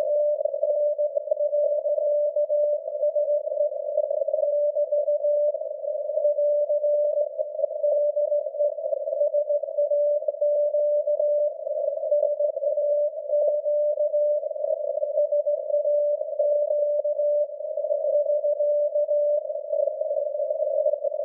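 Morse signal from the SAQ Grimeton longwave transmitter on 17.2 kHz, received through an SDR's narrow CW filter as a beat tone of about 600 Hz. The tone sits in heavy hissing noise and breaks off briefly now and then.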